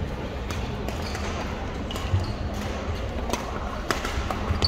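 Gym sounds during a badminton match: a few scattered sharp clicks of rackets hitting shuttlecocks and short sneaker squeaks on the hardwood court, over a steady murmur of voices in the hall.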